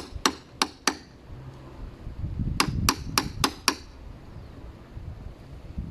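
Light hammer taps in two quick runs, four strikes and then five, each a sharp ringing tap, cutting in the marked outline of a deadbolt lock's mortise in a wooden door edge.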